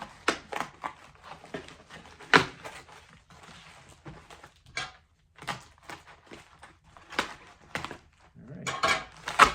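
Styrofoam and cardboard packing being pulled out of a heavily packed mail box: a run of irregular short scrapes and knocks, one sharp loud one about two seconds in, and a denser burst of rustling near the end.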